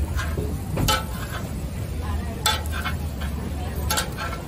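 A few sharp clinks and clatters of dishes and utensils, about 1, 2.5 and 4 seconds in, over a steady low hum of market background noise.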